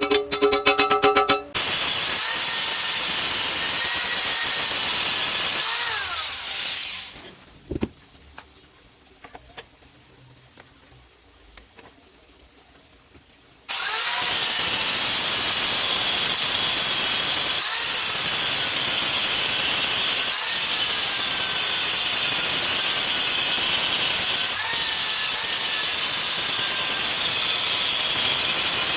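A handheld power tool working on metal: its motor runs under load with a loud high hiss, its pitch dipping every few seconds as the tool is pressed in. It stops for about six seconds in the middle, then starts again and runs on.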